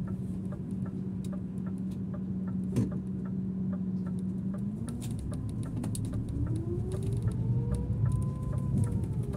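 Scania city bus with its turn-signal relay ticking evenly over the steady hum of the drivetrain, with one knock about three seconds in. From about five seconds the drivetrain whine rises in pitch as the bus pulls away, peaks near eight seconds and eases off as it shifts.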